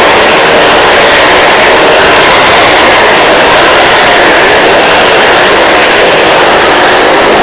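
Motorcycles circling inside a steel-mesh globe of death with their engines held at high revs: a loud, steady, unbroken drone.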